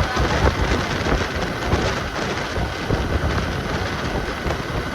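Road noise from a moving motorcycle: steady engine and traffic rumble with wind buffeting the microphone.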